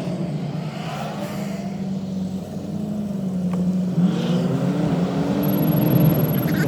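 Vehicle engine running while driving, with a steady hum that shifts in pitch about four seconds in.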